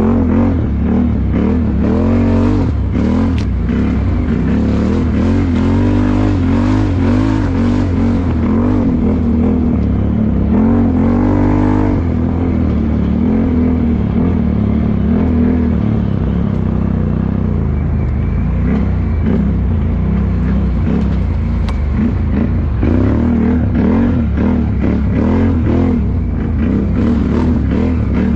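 ATV engine running hard on a muddy trail, its pitch rising and falling again and again as the throttle is worked, over a steady low drone. The biggest rise comes about eleven seconds in, after which the pitch drops back.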